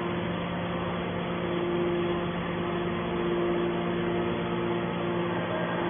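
Hydraulic scrap-metal baler running, a steady hum of its motor and pump with two constant low tones.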